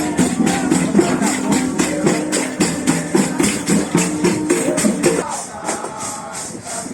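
Procession music: tambourines and shakers keeping a fast, steady beat under a melody of held notes, which drops out about five seconds in, leaving the percussion on its own.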